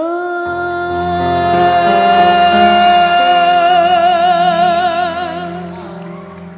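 Dangdut song: a female singer slides up into one long held note with vibrato over sustained backing chords, and the note fades near the end.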